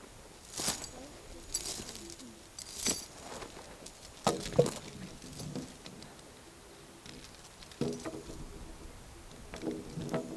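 Steel chain rattling and clinking in several short, irregular bursts as it is handled and wrapped around a felled log. The loudest clatter comes about four and a half seconds in.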